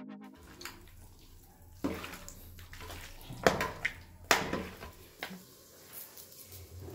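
Water sloshing and splashing, with a few sharp knocks and clatters, like something being washed in a basin or pot.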